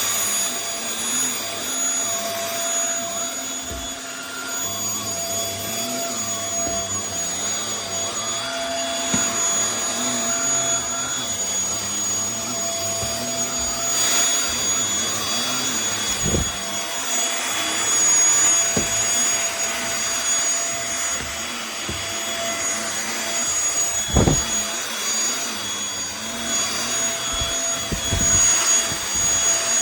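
MBYULO 500W cordless stick vacuum cleaner running continuously, its motor giving a steady high whine over the rush of suction. A few dull knocks come in the second half.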